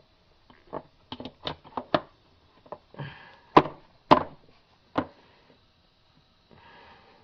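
A series of short knocks and taps as a new automatic-transmission filter is pressed by hand up into its seal in the pump housing: several light ones in the first two seconds, then three louder knocks a little past the middle.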